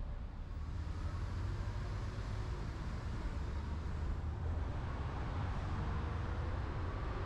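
A car driving along a city road: steady low rumble of road and engine noise.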